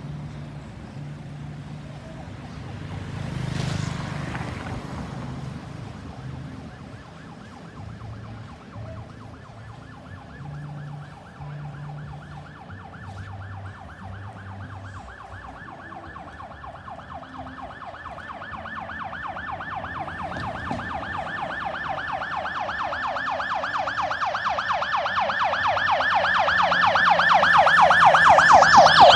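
Ambulance siren in a fast, rapidly rising-and-falling yelp, faint at first, then growing steadily louder over the second half as it approaches, and loudest at the end. Underneath is traffic noise, with a vehicle passing about four seconds in.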